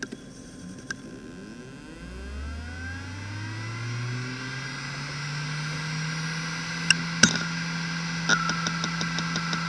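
Maxtor Atlas 10K V 10,000 rpm SAS hard drive spinning up: its spindle motor whine rises smoothly and settles into a steady hum. Two sharp clicks follow, then a run of quick ticks begins near the end as the drive starts its initialisation seek sequence.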